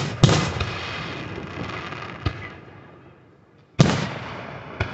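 Aerial firework shells bursting. Two sharp bangs come in quick succession at the start and another loud bang about four seconds in, each followed by a long fading echo, with smaller cracks between them.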